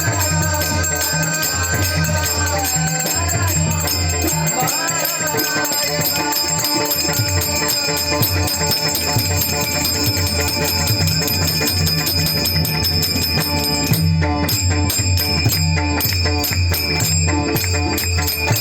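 Bhajan accompaniment: small hand cymbals clashing in a fast, steady rhythm over tabla beats. A wavering melody line is heard in the first few seconds.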